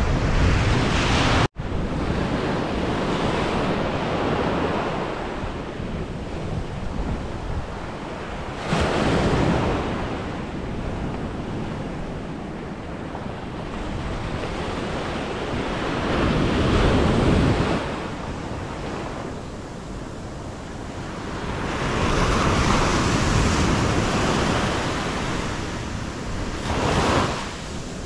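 Ocean surf breaking and washing up the beach, swelling and easing every few seconds, with wind buffeting the microphone. The sound cuts out for an instant about a second and a half in.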